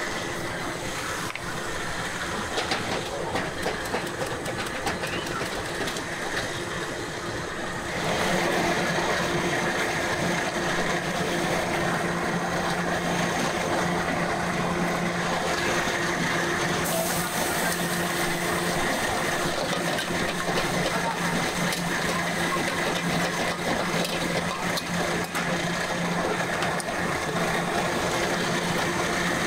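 Steady cooking noise at a fried-instant-noodle stall: an even hiss with a constant machine-like hum, which steps up and grows louder about eight seconds in.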